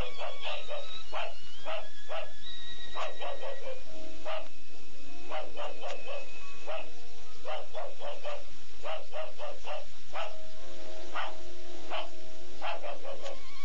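A dog barking over and over in short, sharp barks, about two a second with uneven gaps, including a brief pause about four seconds in.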